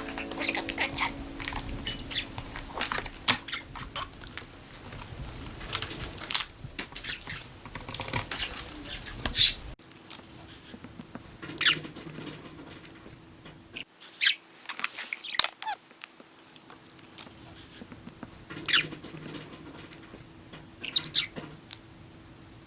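Budgerigar giving short, high chirps and chattering calls at irregular moments, mixed with sharp little clicks, over a faint steady hum.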